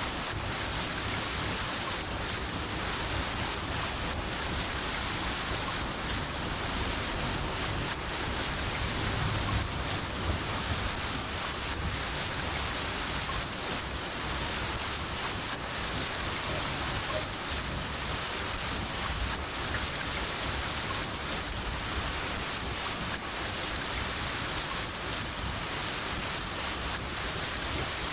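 A cricket chirping steadily, about three to four chirps a second with a couple of brief pauses, over the steady hiss of falling rain.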